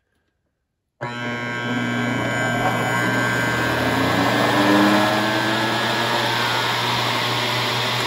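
Microwave-oven transformer core rewound as a motor choke, switched on about a second in and humming loudly and steadily with a buzz. The hum comes from the loose, unwelded steel top plate resting on the core rather than being fixed to it.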